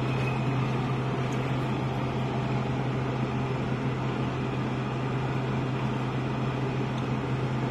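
Steady hum with an even airy rush inside a car's cabin, from the car's running engine and air-conditioning fan.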